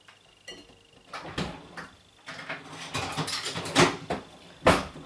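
Kitchen clatter while cleaning up: a run of knocks and short scraping, rustling noises as things are handled and moved, getting busier after about a second, with the sharpest knocks near the end.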